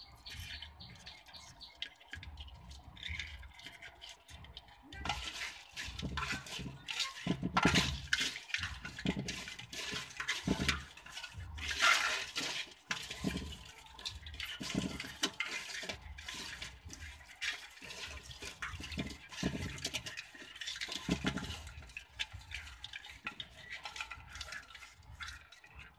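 Shallow water splashing in a plastic tub as a hand stirs through a mass of small crabs, with many sharp clicks and scratches of shells and legs against the plastic. It is quieter at first; the splashing starts about five seconds in and comes and goes irregularly.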